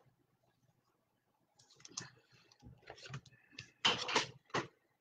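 Trading cards and plastic card sleeves being handled: a run of short rustles, slides and clicks, loudest a little under four seconds in, with a brief squeak of sliding plastic just before.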